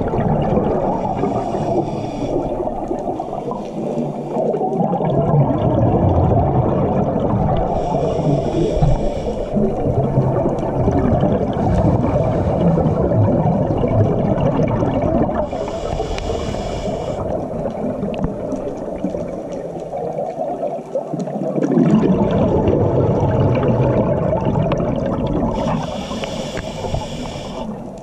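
Scuba diver breathing through a regulator underwater. A hiss of air comes on each inhale, four times at roughly eight-second intervals, with the bubbling rumble of exhaled air in between.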